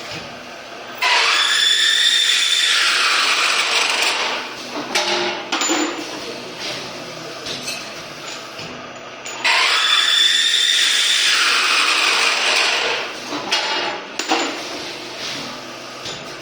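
Double-head chamfering machine running two cycles on metal tubing, each a loud spell of cutting noise lasting about three seconds that opens with a high steady whine. Short knocks and clatter of tube handling come in between.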